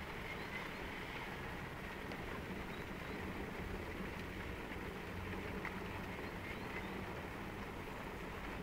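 Steady outdoor rumble and hiss of wind and sea, with no distinct events.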